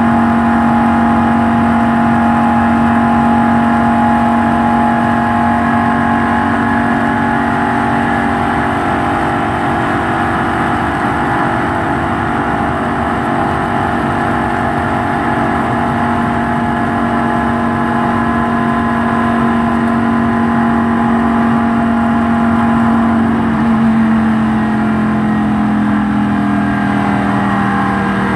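NASCAR stock car's V8 engine at full speed around the oval, a steady drone heard from inside the cockpit, with road and wind noise. Its pitch drops slightly about 23 seconds in.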